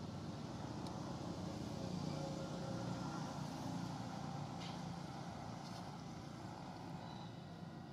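Low rumble of a distant motor vehicle engine, swelling a little about two seconds in and slowly fading, with a few faint clicks.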